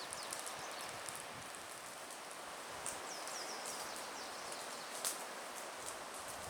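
Outdoor campfire crackling over a steady hiss, with sharp pops about three and five seconds in and faint high chirps and ticks throughout.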